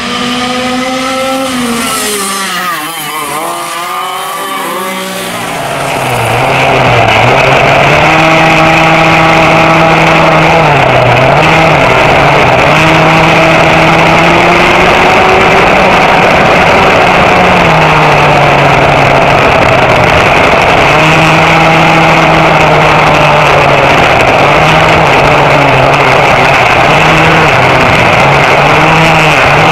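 Vintage racing go-kart two-stroke engines at full throttle. For the first few seconds several karts run past, their engine notes sweeping up and down. From about six seconds one kart's engine is heard close up from on board, loud and steady, its pitch dipping briefly several times as it eases off and comes back on.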